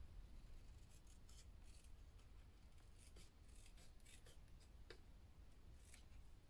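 Faint, irregular snips of scissors cutting paper, with light paper rustle.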